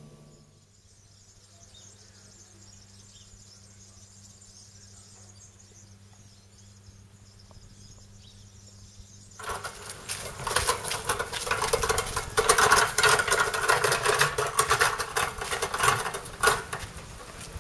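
A faint steady hum, then about nine seconds in a sudden loud, dense crackling rustle starts and carries on.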